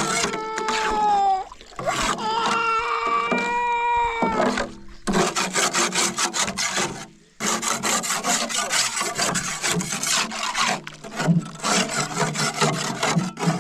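A baby crying in two long wavering wails over the first four seconds. From about five seconds on comes a dense run of rapid, rasping scraping strokes.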